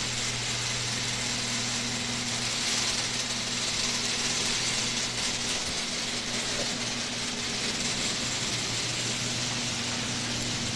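Electric garage door opener running as it raises a sectional garage door: a steady motor hum under an even mechanical whir.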